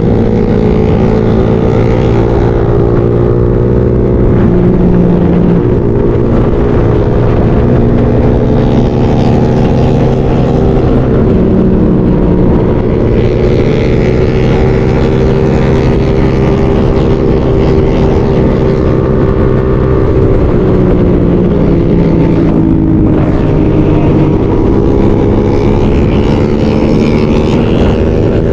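Motorcycle engine running under way on a ride, its note slowly rising and falling with the throttle over a steady rush of road and wind noise.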